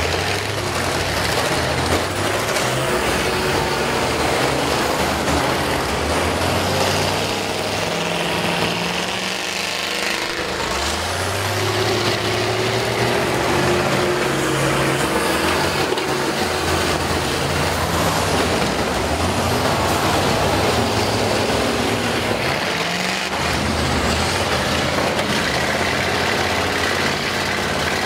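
Several school bus engines running and revving, their pitch rising and falling as the buses drive and push into one another.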